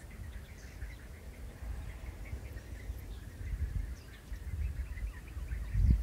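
Wind buffeting the microphone as a low rumble that swells near the end, with faint scattered frog calls in the background.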